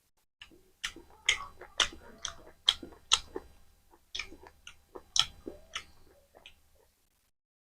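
Close-up mouth sounds of a person chewing mutton curry and rice: a run of sharp wet smacks, about two a second, with squelching between them, stopping about seven seconds in.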